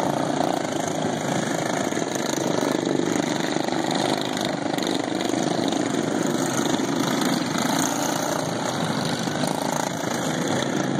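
Several racing lawn mowers running together under full throttle: factory-stock single-cylinder engines governed to 3650 rpm, blending into one steady engine noise.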